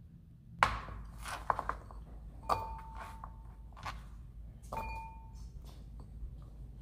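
Chopped carrot pieces dropped by the handful into a small ceramic bowl: a few knocks and clicks, then twice a knock that sets the bowl ringing with a clear tone for about a second.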